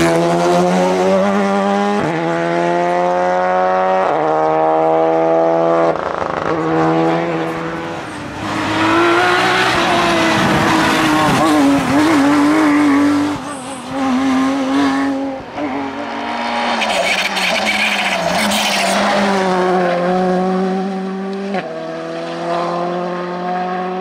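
Rally cars at full throttle, one after another. A Renault Clio rally car's engine revs up through the gears, with an upshift about every two seconds. A Porsche 911 racing car and another rally car follow, accelerating hard.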